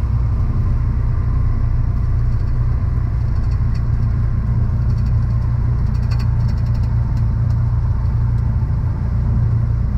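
Cessna 172 Skyhawk engine and propeller running steadily, a constant low drone heard inside the cockpit.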